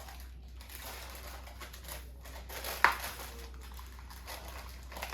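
Wax paper rustling and crinkling as rolled pie dough is flipped over in its pan, with one sharp knock about three seconds in.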